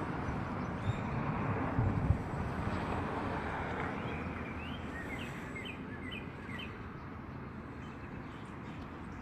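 Steady outdoor background noise with a small bird calling a quick series of short rising chirps, most of them in the middle of the stretch. Two brief low bumps about one and two seconds in.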